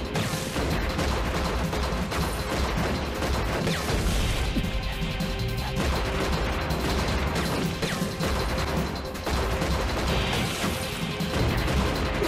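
Gunfire in a film shootout: repeated pistol shots and impacts, over background music.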